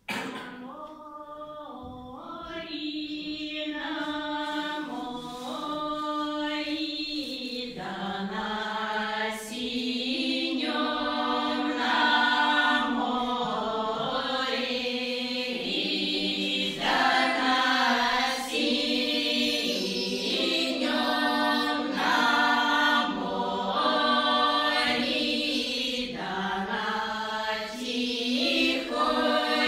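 Women's folk choir singing a Russian folk song a cappella in several voices, with long held notes. The singing begins right at the start and grows louder and fuller over the first several seconds.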